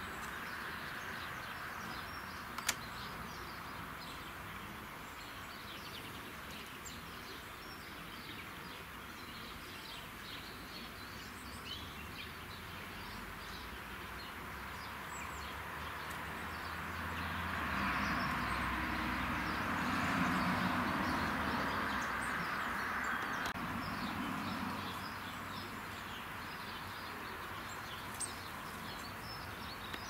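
Small birds chirping and calling over a steady outdoor background noise, which swells for several seconds in the middle. There is a single sharp click about three seconds in.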